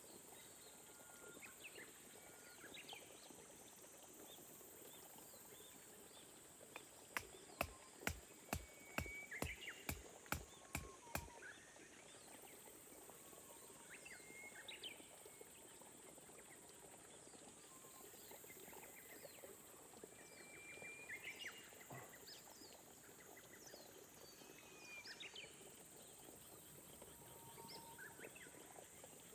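Faint wild birdsong around rice terraces: scattered short chirps and whistled notes over a steady high insect chirring. About a third of the way in comes a quick run of about ten sharp clicks, the loudest sounds here.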